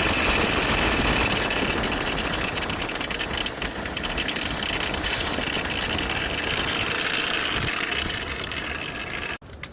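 Car engine idling with a loud, rough whirring grind from the engine bay, the sound of a worn alternator pulley bearing. It cuts off suddenly near the end.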